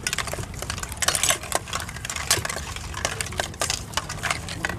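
Metal spoon clinking and scraping against a stainless steel mixing bowl as a seafood salad of cockles in their shells and shrimp is tossed: a quick, irregular run of clicks and clatters.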